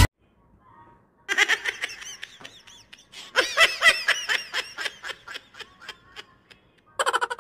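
A woman laughing hard in repeated bursts, starting about a second in.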